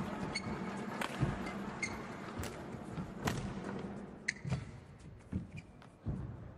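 Badminton rally: rackets striking the shuttlecock in a series of sharp, irregular cracks, with short high squeaks of shoes on the court mat.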